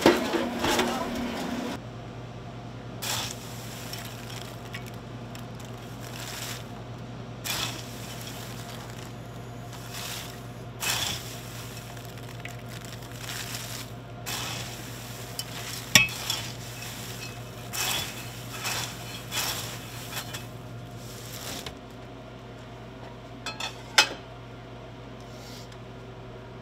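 Commercial popcorn machine running with a steady low hum, with scattered short metal clinks and scrapes. It is louder and busier for the first two seconds, and the sharpest clinks come about midway and near the end.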